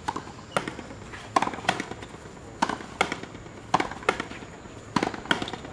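Frontenis rally: rackets striking the rubber ball and the ball smacking off the frontón wall, a run of sharp cracks that mostly come in close pairs about once a second, each ringing on in the enclosed court.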